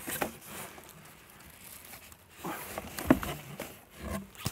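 Paper packaging crinkling and cardboard inserts rustling and scraping as they are pulled out of a cardboard box, in a few short rustles, the loudest about three seconds in.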